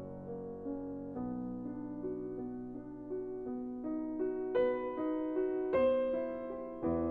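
Background piano music: a gentle melody of single struck notes over held chords, a new note about every half second.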